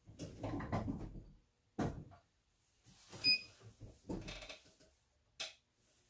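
A t-shirt being handled and heat-pressed to take out wrinkles: cloth rustling and a series of knocks and clunks from the press, with a short high beep about three seconds in and a sharp click near the end.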